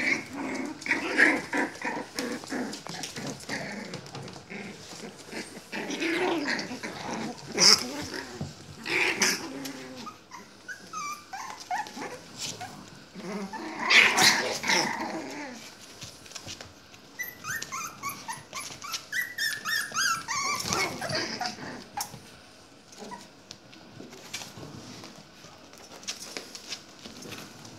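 Young puppies play-fighting, giving small growls and short high whimpering squeals in quick runs, with a louder outburst about halfway through; the squeaking dies down near the end.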